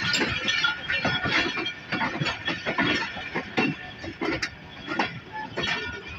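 Passenger railcar in motion, rattling and clanking: a steady run of irregular knocks and rattles from the coach and its wheels on the track.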